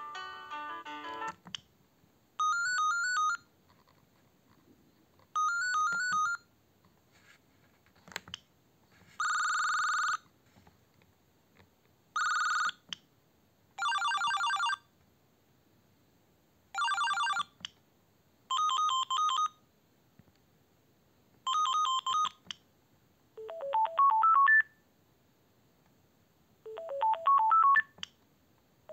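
Siemens Gigaset C595 cordless phone handset playing its ringtones one after another. There are about ten short snatches, each a second or so long, with gaps of one to two seconds. Most are warbling electronic beep patterns, one is a steady trill, and near the end come two short rising melodies. Faint clicks sound in some of the gaps.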